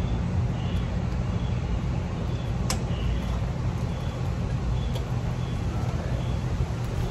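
Two sharp snips of wire cutters cutting through the compressor motor's electrical wires, about two seconds apart, over a steady low drone.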